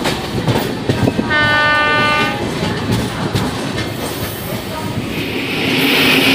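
Indian Railways express train running on the rails with wheel clatter. A train horn sounds once for about a second, about a second in. Near the end a louder steady rushing hiss builds as a train passes on the next track.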